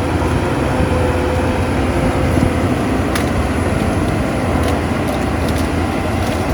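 Shantui crawler bulldozer's diesel engine running steadily, a deep low sound with a faint steady whine above it. A few short, sharp clicks or cracks come in the second half.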